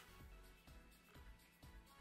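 Very faint background music with a steady beat.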